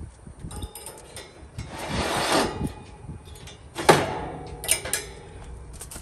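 Metal cooking grates of a Napoleon gas grill being scraped during cleaning: a scraping stroke about two seconds in, then a sharp metallic clank just before four seconds and a few lighter clicks after.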